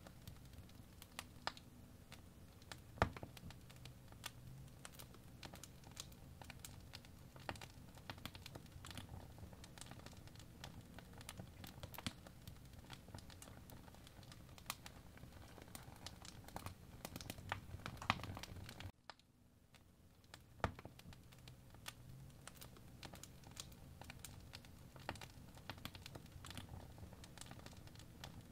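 Crackling fireplace ambience: a low, steady fire bed with irregular sharp pops and crackles. About two-thirds of the way in it cuts out abruptly and fades back in over a couple of seconds.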